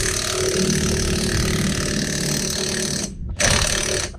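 Cordless impact wrench hammering as it drives a hub-installer tool to draw the front wheel hub into a press-in wheel bearing. It runs for about three seconds, stops briefly, then fires in two shorter bursts.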